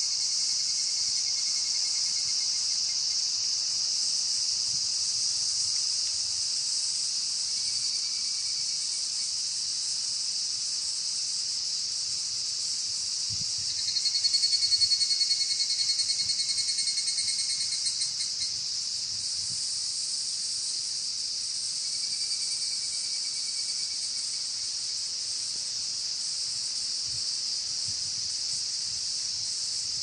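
Cicada chorus, a steady high-pitched shrilling, with higurashi (evening cicadas) calling over it in rapid pulsed 'kana-kana-kana' trills. Faint trills come and go; a loud one starts about halfway through and trails off over about four seconds.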